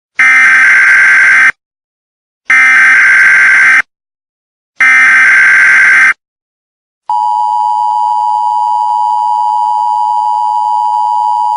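Emergency Alert System broadcast tones: three short bursts of SAME header data, each about a second and a half long with a pause between, then the steady two-tone EAS attention signal starting about seven seconds in.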